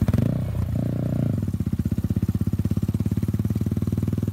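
Yamaha R15 V4's single-cylinder four-stroke engine running through a short aftermarket silencer on the move, the exhaust beating in a fast, even pulse. It is a little louder in the first second or so, then steady.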